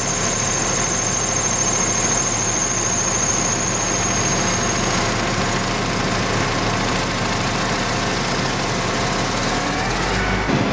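Seed and fertilizer tender truck running steadily while its belt-conveyor arm is swung into position. A high thin whine fades out about halfway through, and near the end the sound switches abruptly to a lower steady hum.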